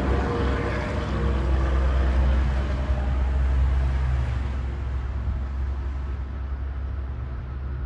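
Low engine rumble of a motor vehicle going by, loudest a couple of seconds in and then fading away.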